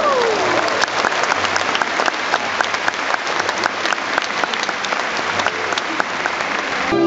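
Audience applauding, a dense patter of many hand claps. Music cuts back in right at the end.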